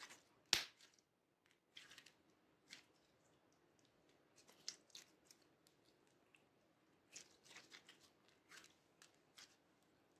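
Mint slime kneaded and stretched by hand, giving quiet sticky clicks and crackles in scattered clusters, with one sharper click about half a second in.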